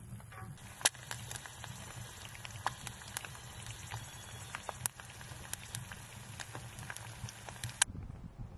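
Eggs frying in a pan on a wood stove: a steady sizzle with frequent sharp pops. It starts about half a second in and cuts off shortly before the end.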